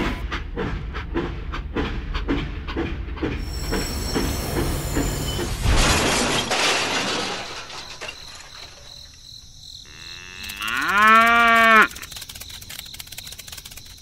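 Toy train running on its track, its wheels clicking about three to four times a second over a low rumble, then a crash about six seconds in. Near the end a cow moos once, loudly, for about a second and a half, the call rising and then falling.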